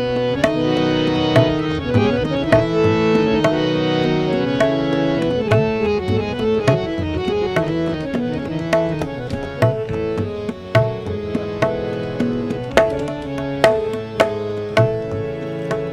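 Harmonium playing a melodic instrumental interlude of a ghazal, with tabla strokes keeping the beat underneath.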